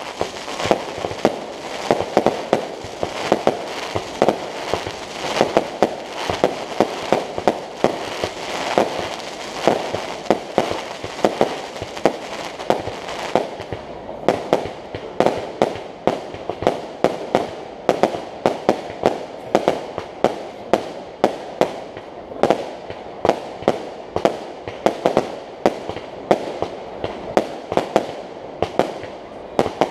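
Fireworks display: a rapid barrage of shell bursts, many sharp bangs a second, with a dense crackle filling in between them. About halfway through the crackle drops away, and the bangs go on as distinct reports a few a second.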